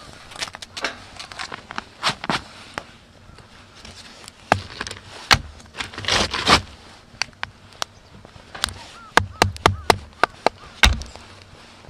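Batoning with a bushcraft knife: a wooden stick strikes the knife's spine to split a stick of wet kindling against a rock. The knocks are sharp and irregular, with a few lighter ones at first and quick clusters in the second half.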